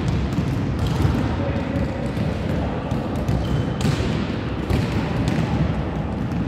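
Volleyballs being struck by hands and bouncing on a sports hall floor during a warm-up: many irregular, overlapping thuds, with some louder hits standing out.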